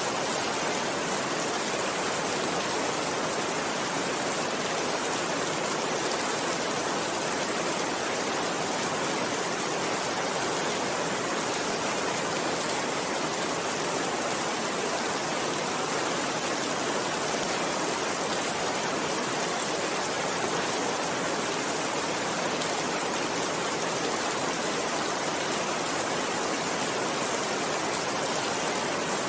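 Steady rainfall: a constant, even hiss of rain that does not change.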